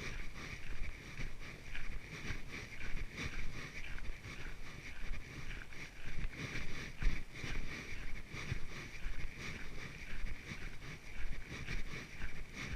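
Footsteps of a person walking on a trail, about two steps a second, over a steady high hiss.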